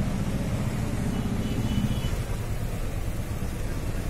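Skoda Fabia's engine idling with a steady low rumble during an HHO engine carbon-cleaning treatment.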